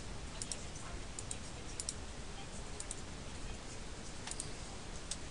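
Computer mouse clicking several times, mostly in quick press-and-release pairs, over a steady faint hiss.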